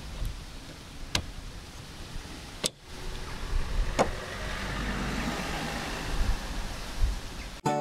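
Sharp plastic clicks from a new Bosch H309 rear wiper blade being snapped onto a Toyota Yaris's rear wiper arm and the arm being set back on the glass: three clicks about a second and a half apart, over a low rumble.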